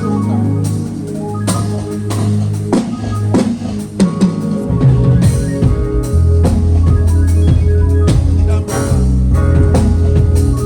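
Live band instrumental: a drum kit striking over held low bass notes and sustained keyboard chords.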